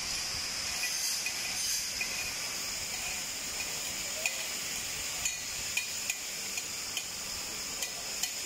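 Steady hiss of gas flowing from the oxy-acetylene cutting torch tip before ignition, with scattered light clicks through the second half.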